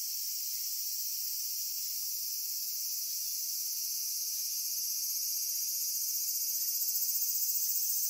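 Steady, high-pitched insect chorus in a bamboo grove, a rapid pulsing drone that grows slightly louder in the second half.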